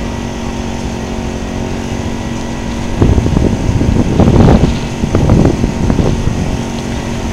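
Steady low engine hum. Gusts of wind buffet the microphone from about three seconds in until shortly before the end.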